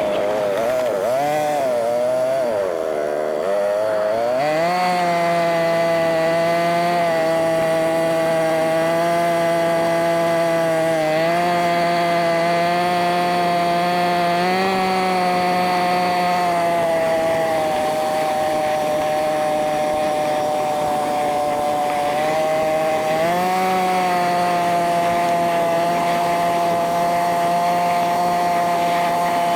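ATV engine running under throttle, its pitch dipping and wavering for the first few seconds, then climbing and holding fairly steady with small rises and falls. It sounds high-pitched and buzzy because the ride is sped up.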